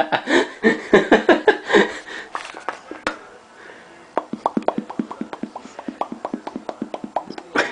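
Mouth popping noises: a quick, even run of short pops, several a second, after a couple of seconds of playful voice sounds.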